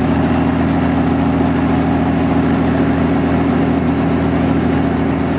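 Robinson R44 Astro helicopter's freshly overhauled Lycoming six-cylinder piston engine running steadily at low rpm on a ground run, the main rotor turning slowly.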